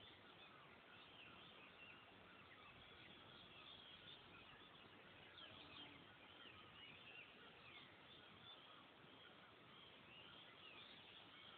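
Faint, steady chatter of many small birds chirping over background hiss.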